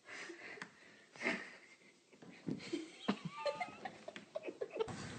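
Faint, irregular taps and clicks, mostly in the second half, from a deer fawn's hooves on a hardwood floor. A brief faint squeak comes partway through.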